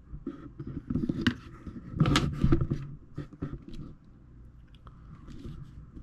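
Handling noise: a series of sharp clicks, taps and scrapes as small objects are moved about. It is busiest in the first three and a half seconds, then settles to occasional faint ticks.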